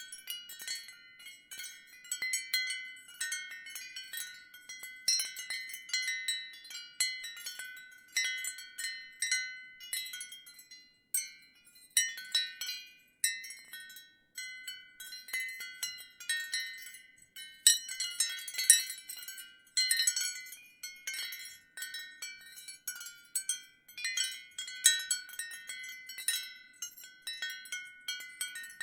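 Ceramic wind chime tinkling in the breeze: irregular clusters of light strikes with ringing tones, fuller bursts of several strikes about 12, 18 and 25 seconds in.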